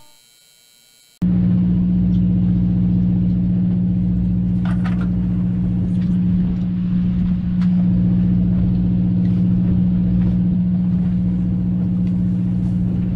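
A fishing boat's machinery running with a steady low hum and rumble. It cuts in suddenly about a second in, after a moment of near silence, with a few faint clicks over it.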